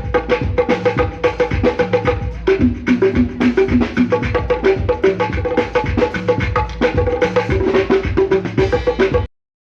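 Percussion-heavy dance music played loud over a PA sound system during a sound check: a dense, fast beat under a short repeating melodic figure. It cuts off abruptly near the end.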